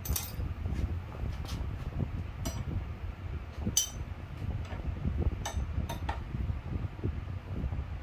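Metal tools clinking: scattered sharp metallic clinks, a few ringing briefly, over a steady low rumble.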